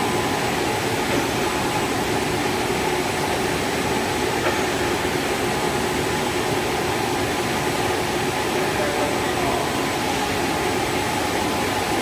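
KS-FE55S twin-head HDPE blown film extrusion line running: a steady, even mechanical noise with a few constant tones in it, from the drive motors, blowers and film winders all working at once.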